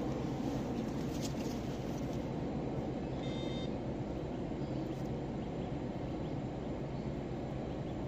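Steady low outdoor rumble, with a short beep-like tone about three seconds in.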